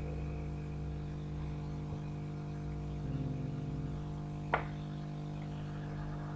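Steady electrical hum on a repair bench, with one sharp click about four and a half seconds in.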